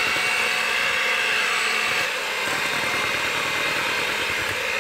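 Electric hand mixer running steadily, its beaters churning through creamed butter and sugar as the flour and cocoa mixture is gradually blended in. The hum dips slightly about two seconds in.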